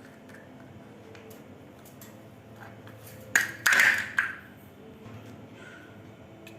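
Faint scattered clicks and taps of a parrot handling a plastic cap, then a loud, harsh burst of about a second, a little past three seconds in.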